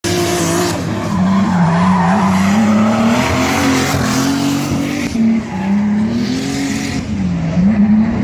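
Car engine revving up and down under throttle with tyre squeal swelling in and out, the sound of a car drifting.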